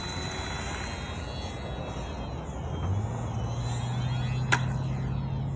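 RC model airplane's motor and propeller running with a steady low hum that steps up in pitch about halfway through and keeps rising slightly. One sharp click near the end.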